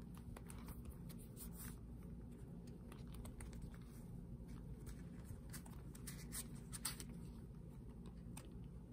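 Light scratching and clicking of fingers and fingernails handling a Tory Burch Kira leather bi-fold wallet, its card slots and its paper price tag, over a faint low hum. The sharpest click comes a little before seven seconds in.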